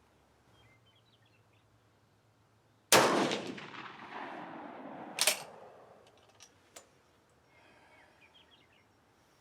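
A Swiss K31 straight-pull rifle in 7.5x55mm Swiss fires a single shot, a loud sharp report with a long fading echo, from a handload of a 168-grain Hornady match bullet over 42 grains of AR Comp powder. A second, shorter sharp bang follows about two seconds later.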